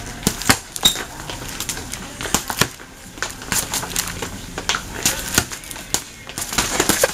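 Boxing gloves landing punches: a fast, irregular run of slaps and thuds.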